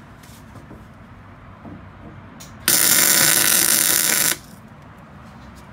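Wire-feed welder tack-welding a square steel tube brace: a loud steady buzz that starts about halfway through and cuts off sharply after about a second and a half.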